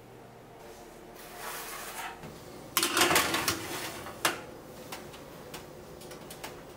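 Metal baking trays sliding over a wire oven rack: a rattling scrape about three seconds in, then a sharp knock a second later, with a few fainter clicks after.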